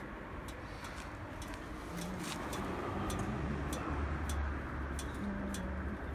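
Kubota GH200 single-cylinder OHV petrol engine on a TR90 tiller running at idle, a steady low hum that grows a little stronger about two-thirds of the way in, with light irregular ticking a few times a second.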